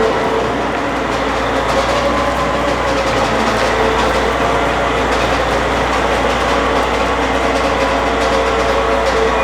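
Caterpillar tractor's diesel engine running steadily under way, with a faint steady whine over the engine noise.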